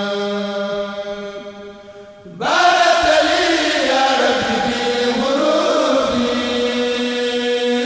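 Mouride kourel chanting group singing a khassida in Arabic in unison. One long held note fades away, and after a short break a little over two seconds in, the voices come back louder on the next line.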